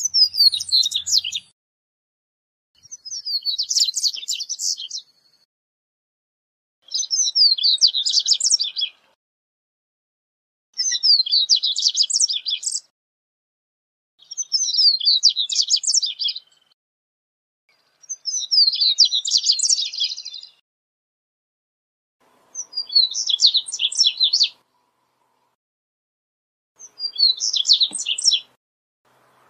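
Male double-collared seedeater (corbatita) singing: a phrase of rapid, high twittering notes about two seconds long, repeated eight times at roughly four-second intervals.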